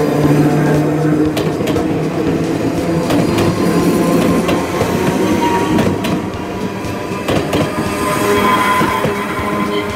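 An Enoden electric train passing close by, its wheels clicking over the rail joints and a steady rumble throughout, with a high wheel squeal near the end.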